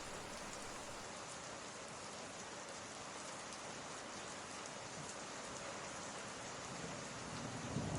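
Steady rain ambience: an added background track of rain falling, with a low rumble of thunder starting to build near the end.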